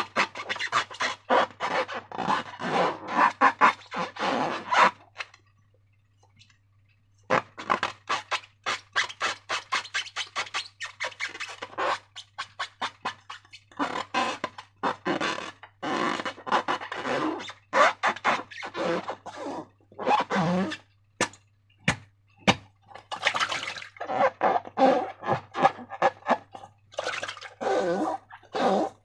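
Slime squelching and crackling as it is squeezed and worked by hand: a fast run of small wet clicks and pops, with a pause of about two seconds near the start.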